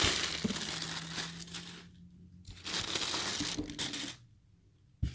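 Shipping packaging being torn and crumpled open by hand, in two spells of rustling and crinkling, followed by a sharp click near the end.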